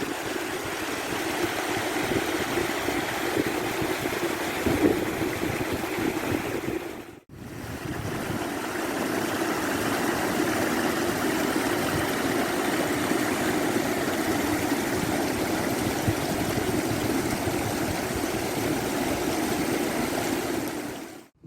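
Small waterfall pouring loudly down a low slope: a steady rush of falling water, broken off briefly about seven seconds in.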